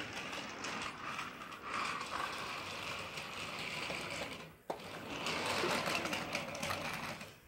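Small battery-powered motor and plastic gears of a motorized Thomas & Friends toy engine whirring steadily on plastic track. A little after halfway it stops for a moment with a click, then whirs again.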